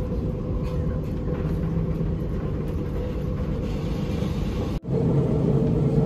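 Steady low rumble of vehicle noise with a faint hum in it. It cuts out for an instant near the end and resumes a little louder.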